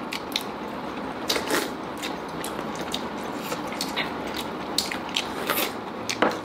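Close-miked eating sounds: people chewing and smacking their lips over chicken curry, with many irregular sharp clicks.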